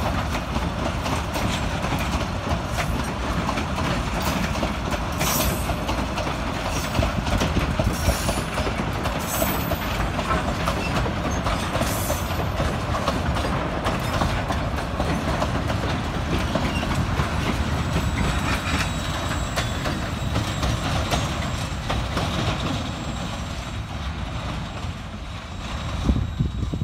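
Freight wagons (tank containers, a tank car and boxcars) rolling past, their steel wheels clacking over the rail joints. The sound fades over the last few seconds as the end of the train draws away.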